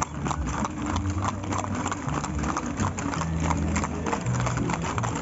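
Horses' hooves clip-clopping in a quick, uneven patter of sharp clicks, with music playing underneath.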